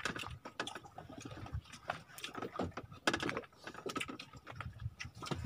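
Irregular light clicks and clatter of plastic dishes and containers handled as men eat with their hands.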